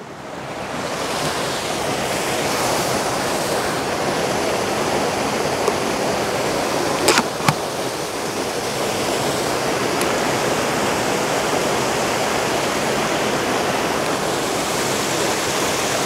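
Waterfall rushing steadily, swelling in over the first second or two. Two short clicks about half a second apart come a little before the middle.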